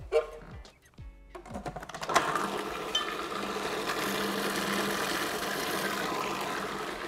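A few knocks and clatters, then about two seconds in a food processor's motor starts and runs steadily, blending mayonnaise thinned with a dash of water.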